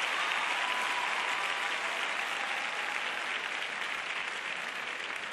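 Large arena crowd applauding, gradually dying down.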